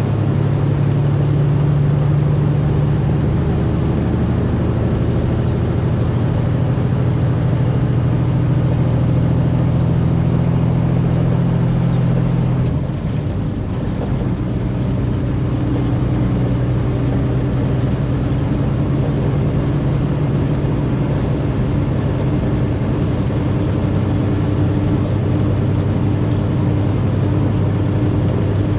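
Semi truck's diesel engine and road noise, heard from inside the cab while driving, a steady low hum. About halfway through it dips briefly and the hum changes, then it runs on steadily.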